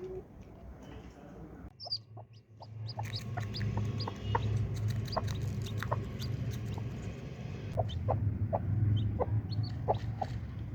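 A hen clucking in short repeated notes, with chicks cheeping, after a brief lull about two seconds in.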